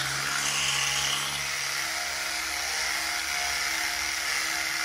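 Round-headed electric toothbrush running steadily while brushing teeth: an even motor hum with a fine hiss of the bristles, its tone changing slightly about two seconds in.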